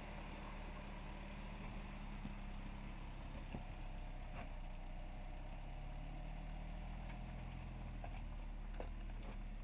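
Jeep Cherokee Trailhawk's engine running at low revs as the SUV crawls slowly over rocks, the revs rising slightly midway. A few sharp clicks come from the tyres rolling over the rocks.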